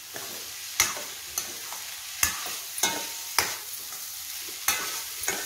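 A spatula stirring and scraping crumbled rice upma around a stainless steel pan, a sharp scrape about every half second to second, over a faint steady sizzle as the upma heats through on the flame.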